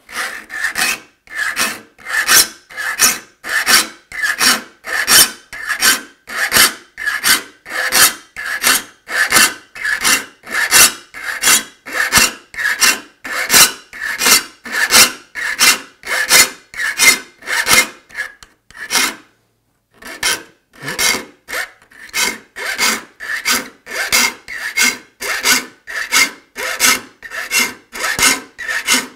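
Steel saw file rasping across handsaw teeth clamped in a vise, in steady, even strokes about two a second, with a pause of about a second roughly two-thirds of the way through. The teeth are being filed to a rip-cut shape.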